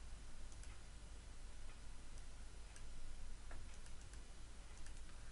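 A few scattered, sharp clicks of a computer mouse over a steady low hum and hiss.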